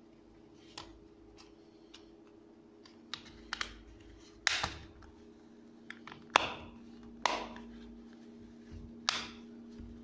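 Plastic snap-fit clips of a TV remote control's case clicking into place as the two halves are pressed together along the seam: about eight sharp clicks, irregularly spaced, the loudest two near the middle.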